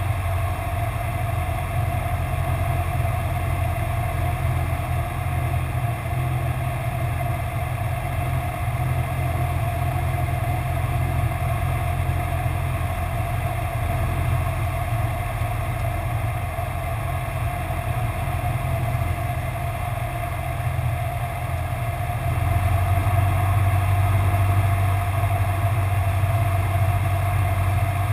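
Cessna 172's piston engine and propeller droning steadily, heard inside the cockpit on final approach. It gets slightly louder for the last several seconds.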